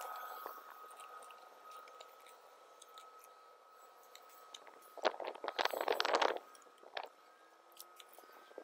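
Cloth rustling close to the microphone for about a second and a half, about five seconds in, followed by a few light clicks. A faint steady high whine runs underneath.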